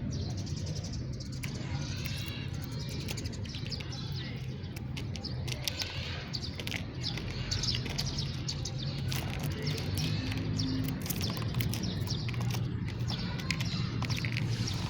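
House sparrows chirping, many short chirps in quick, irregular succession, over a steady low hum.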